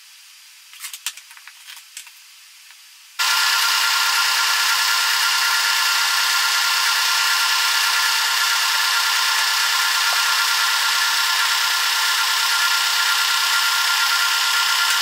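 A few light clicks of clamps and wood being handled, then about three seconds in an air compressor switches on abruptly and runs with a steady, even whine.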